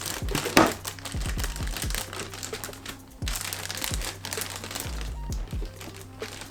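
Packaging crinkling and rustling as it is handled and opened, with a sharp crackle about half a second in, over background music.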